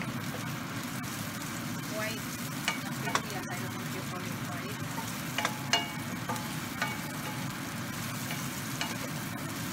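Sliced onions and garlic sizzling in oil in a nonstick frying pan, stirred with a wooden spatula that knocks against the pan a few times, over a steady low hum.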